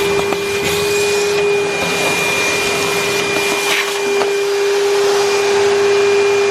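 ToolPRO 35-litre wet and dry shop vacuum running steadily, its motor holding one steady whine over the rush of air, with a few faint knocks.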